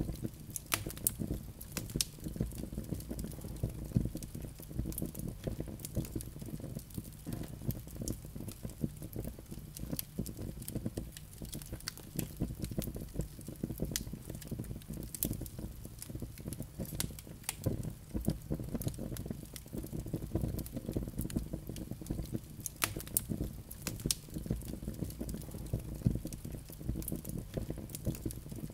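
Wood fire burning in a fireplace: irregular sharp crackles and pops from the burning logs over a steady low rumble of flame.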